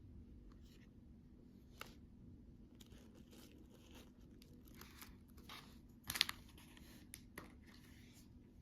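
Candy packaging being torn open and crinkled: soft rustling with a few sharp snaps, the loudest a crackling burst about six seconds in.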